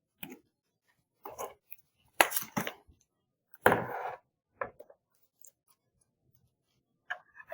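A MacBook Pro and tools being handled on a hard surface before its bottom case is opened: several separate knocks and light clinks, bunched in the first five seconds.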